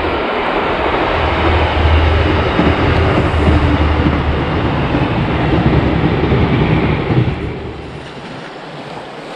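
A passing train: a steady low rumble with rushing noise that fades away about eight seconds in, over the rush of the flooded river.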